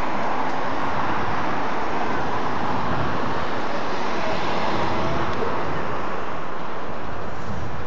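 Steady rushing of wind on the microphone over the drone of a vessel's engine.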